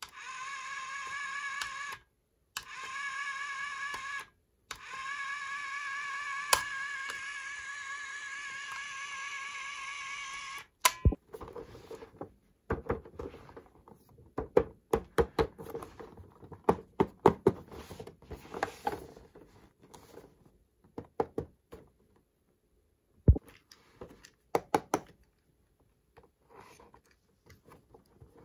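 A toy appliance's electronic buzzing tone, steady and slightly wavering, cutting out briefly twice and stopping about eleven seconds in. Then a run of sharp plastic clicks and taps as the toy's parts are handled.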